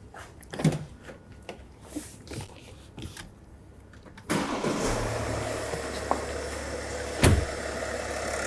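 A few faint clicks, then about four seconds in an inline six-cylinder car engine is started and settles straight into a steady idle. A single sharp thump sounds near the end.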